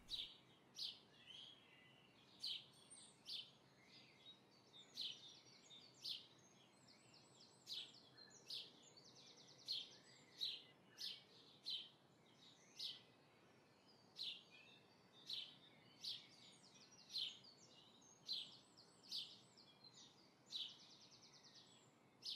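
Faint scratches of a graphite pencil drawing short strokes on paper, one short scrape about every second. Faint bird chirps and trills come and go in the background.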